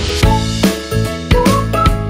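Instrumental background music with a steady beat and a melody line on top.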